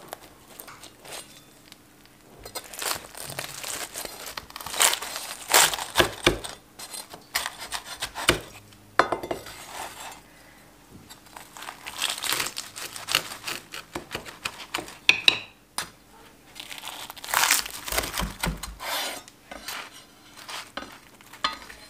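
Knife cutting through the crisp crust of a deep-fried stuffed flatbread: dense crackling and crunching in three spells.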